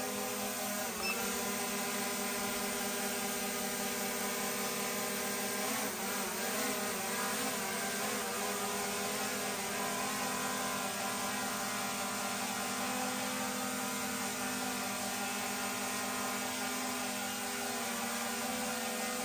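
DJI Mini 3 Pro drone's four propellers whirring steadily as it hovers, a constant buzzing whine of several tones together. The pitch wavers briefly about six seconds in as the drone corrects its position.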